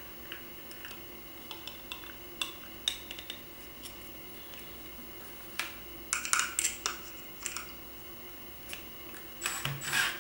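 Light clicks and taps of small plastic and metal parts being handled as a sheet-metal screw and a plastic lantern base are lined up under a drill. A cordless drill starts driving the screw just before the end.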